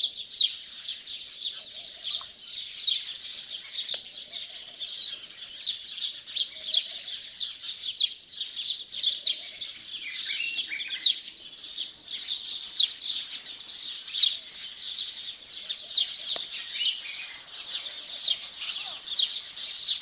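A dense morning chorus of small birds chirping, many quick high chirps every second without a break, with fainter, lower calls now and then.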